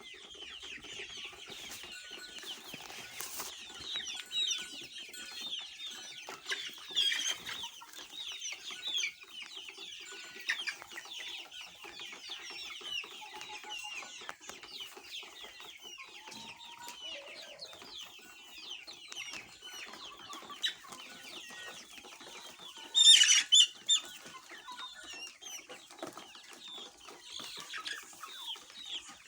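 A flock of gavran (Indian country) chickens clucking and calling, many overlapping short calls without pause. A few much louder calls stand out about three-quarters of the way through.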